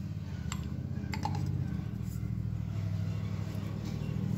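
A few light metallic clicks as the Ford 8N governor's gear and weight assembly is fitted into its housing by hand, over a steady low hum.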